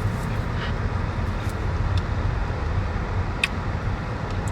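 Steady low rumble of road noise inside a moving car's cabin, with a brief light click about three and a half seconds in.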